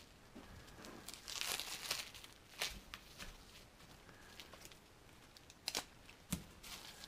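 Dried glue being peeled and picked off plastic wrap stretched over a shelf: a few short stretches of scratchy rustling and tearing, with several sharp clicks.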